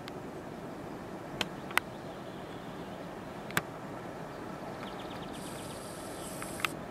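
Steady low rumble of a distant electric freight train approaching, broken by a few sharp clicks, with a brief high hiss near the end.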